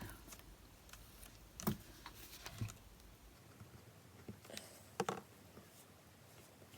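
Scattered light taps and clicks of small paper pieces and tools being handled on a craft desk, with the sharpest taps just under two seconds in and about five seconds in.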